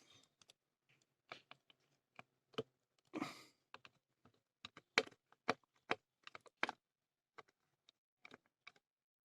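Faint, irregular clicks and taps of a screwdriver and small metal parts as the screw holding the TDA2030 amplifier IC to its heatsink is taken out, with a brief scraping rattle about three seconds in.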